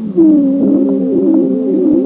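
Recorded lung sound: a continuous musical wheeze made of several wavering tones sounding together, starting just after the beginning. A wheeze like this is the sign of narrowed airways.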